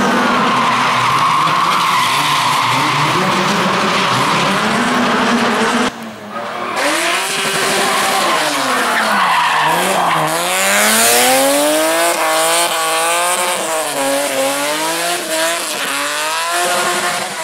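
Rally car engines at full throttle on a stage. After a sudden cut about six seconds in, one engine's revs swing sharply down and up several times as the car brakes and changes gear.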